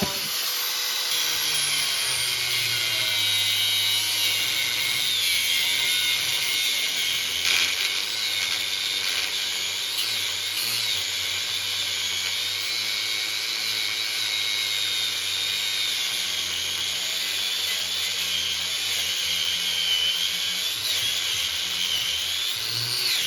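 Angle grinder cutting through steel on a VW Beetle-type front end: a steady, continuous grinding whine whose pitch wavers up and down as the wheel bites into the metal.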